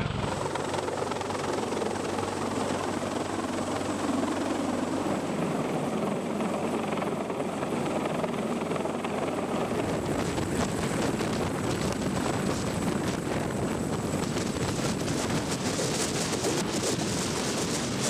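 CH-53E Super Stallion heavy-lift helicopter's rotor and turbine engines running steadily as it approaches and hovers low. About ten seconds in, the noise turns gustier, heard from close beneath the hovering helicopter.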